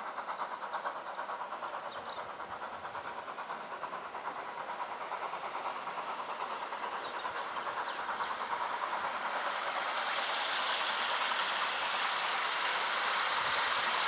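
GWR 'Manor' class two-cylinder 4-6-0 steam locomotive passing under steam, its exhaust beating in a quick, even rhythm. The sound grows louder, and from about two-thirds of the way in the coaches' wheels rolling by give a steady, louder rush with hiss.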